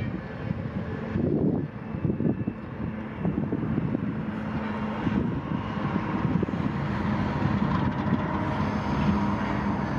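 Diesel locomotive engine running with a steady hum, under heavy wind buffeting on the microphone.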